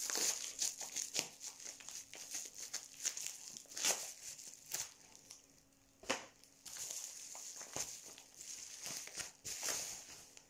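Packaging being handled and unwrapped: irregular crinkling and rustling with scattered sharp clicks, the loudest about four seconds in.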